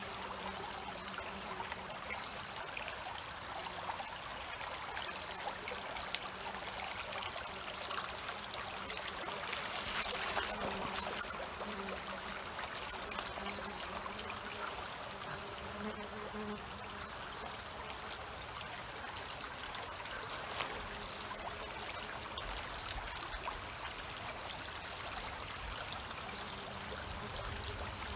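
Steady, even outdoor background hiss, with a brief louder swell of noise about ten seconds in.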